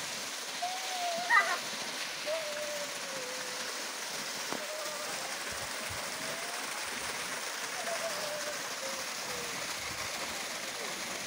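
Water pouring from a pipe into a concrete irrigation pool, a steady rushing splash. A short, sharp louder sound comes about a second in.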